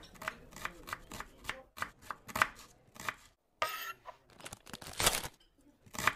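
Kitchen knife chopping vegetables on a cutting board: a run of quick, sharp strokes, about three a second, with a short break a little past halfway.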